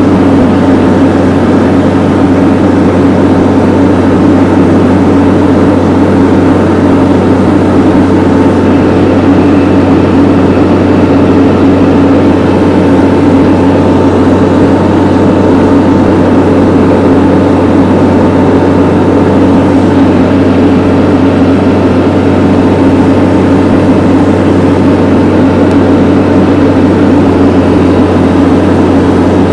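A vehicle engine running steadily under load, close and loud, while it drags a heavy log uphill.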